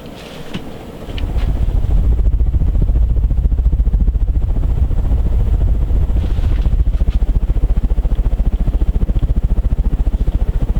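Fanimation Ascension 48-inch ceiling fan running on high, its downdraft buffeting the microphone in a fast, even low throb with each blade pass. The throb rises sharply about a second in and then holds steady.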